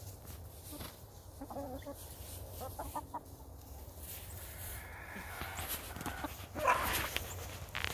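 Hens clucking softly in short calls while they peck and scratch at food in dry straw, with a brief louder rustle near the end.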